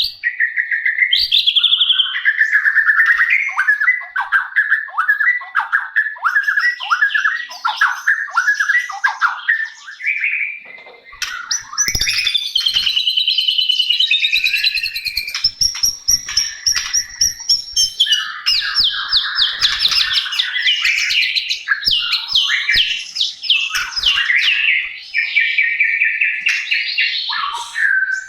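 White-rumped shama singing loudly and continuously: first a fast series of short falling notes, then after a brief break a varied, high warbling song with rapid trills.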